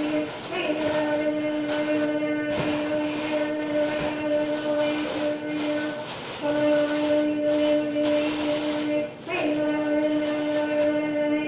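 Thin plastic produce bag rustling and crinkling in uneven surges as a bunch of leafy herbs is handled and pulled out of it, over a steady droning tone that breaks off briefly twice.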